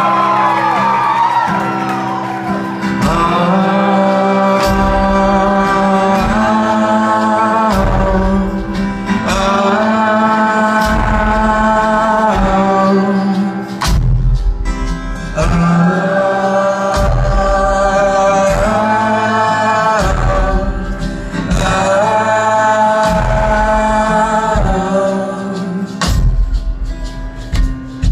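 Live indie-folk band performing: sustained sung phrases in repeated two-second lines over guitar, bass and drum hits.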